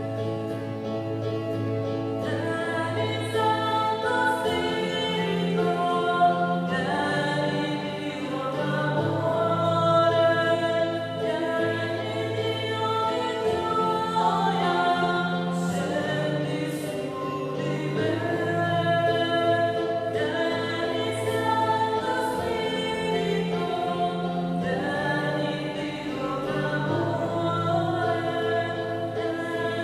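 A choir singing a slow devotional hymn, with sustained chords that change every second or two.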